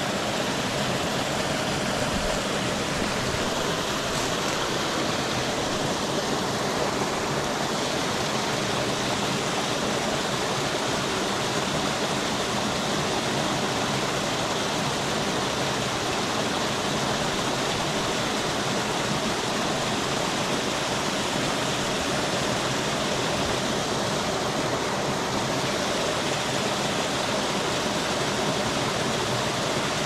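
Mountain stream spilling over a low cascade into a rocky pool: a steady, unbroken rush of water.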